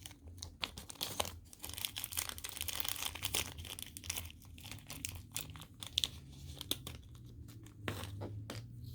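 Close handling noise: irregular crinkling rustles and small clicks as a metal jewelry bail is picked up and handled.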